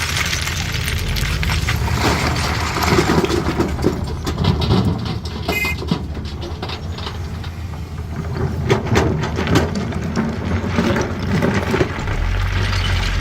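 CAT 320D excavator's diesel engine running steadily under load, with stone knocking and clattering irregularly as the bucket works the rock.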